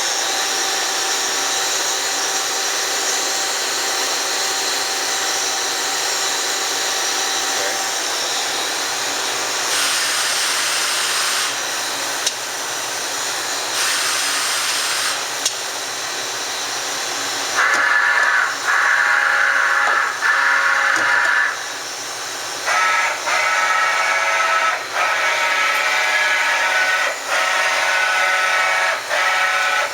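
Kitamura Mycenter 4 CNC vertical machining center running with a steady whirring hiss. A little past halfway, a higher motor whine begins and comes in a series of runs a second or few long, with short breaks between them.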